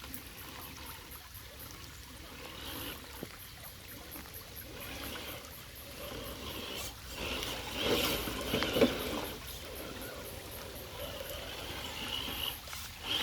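Traxxas TRX-4 RC crawler driving through wet ground and water, with splashing and trickling; the splashing grows louder about eight to nine seconds in.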